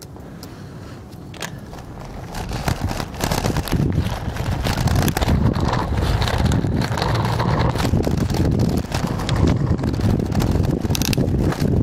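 Wind rumbling on the microphone of a camera riding on a moving bicycle. It grows louder from about two seconds in as the bike picks up speed, and scattered clicks and knocks run through it.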